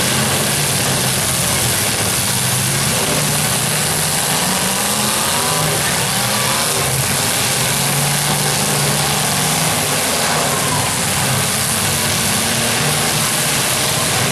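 Several demolition derby cars' engines running and revving together, a loud, steady din.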